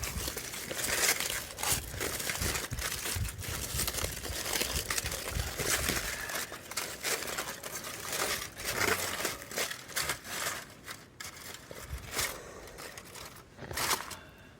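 Aluminium foil wrapping crinkling as it is pulled off a bonfire-roasted sweet potato: a dense run of irregular crackles that grows sparser in the last few seconds.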